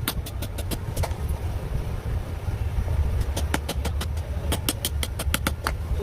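E-rickshaw with a BLDC motor running, a steady low rumble overlaid with runs of sharp clicks, about five a second, in the first second and again from about three and a half seconds in.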